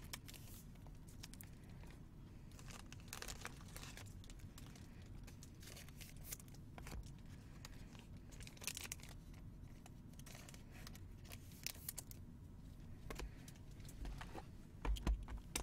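Faint, scattered rustling and crinkling of trading card packaging being handled, with light clicks here and there. A soft thump comes near the end as a hand takes hold of a sealed, shrink-wrapped card box.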